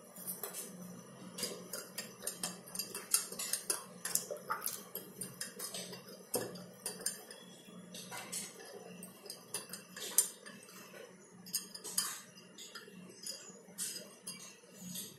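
Small plastic spoon stirring salt into water in a glass tumbler and scooping from a plastic salt container, clinking and scraping in quick irregular clicks, with a few louder knocks against the glass.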